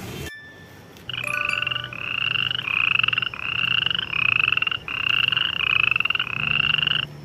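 A frog calling: a run of about eight short, pulsed calls in quick succession, each rising slightly in pitch, starting about a second in.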